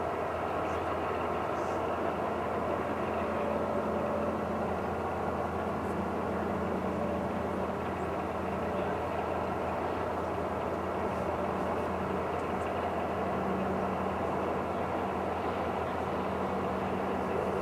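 Heavy diesel engine running steadily at a constant pitch, a continuous low drone with a steady hum.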